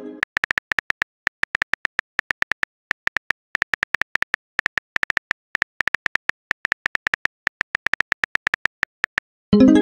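Keyboard-click sound effects, one per typed character, in quick runs of about eight clicks a second with short pauses. Just before the end a short pitched chime starts, the message-sent alert.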